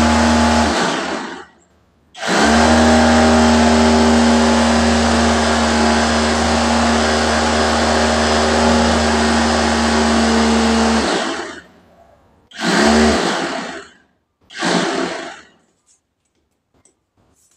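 Small electric food chopper grinding garlic and green chilies into spice paste, run in pulses: a short burst, a long steady run of about nine seconds, then two short bursts.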